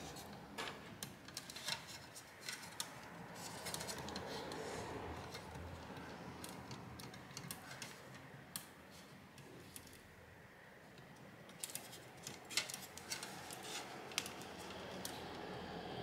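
Faint scattered small clicks and handling noises as fingers work a fan header cable's little plastic plug into its socket on a graphics card, with a cluster of sharper clicks a little past the middle and again near the end.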